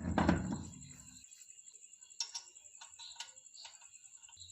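A car road wheel being fitted back onto the hub: a heavy rumbling clunk in the first second, then scattered light metallic clicks.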